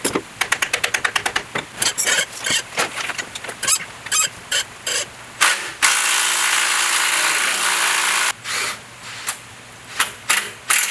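Ratchet wrench clicking rapidly as a rusted differential-mount fastener is worked loose, followed by irregular clicks and knocks. About six seconds in comes a steady hiss lasting roughly two and a half seconds, then more clicking.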